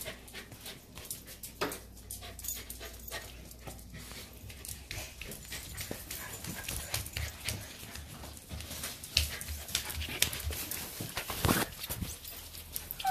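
Small dogs moving about on a tile floor, with scattered clicks and taps from their claws.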